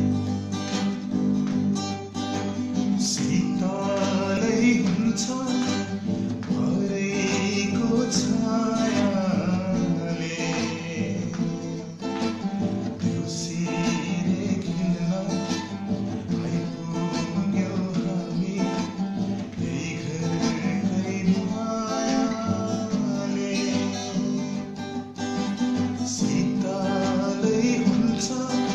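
A man singing a Nepali Deusi song, accompanying himself by strumming an acoustic guitar.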